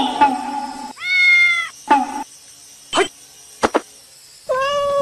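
Domestic cat meowing twice: one long meow about a second in and another near the end, each held at a steady pitch. A few short, sharp sounds fall between them.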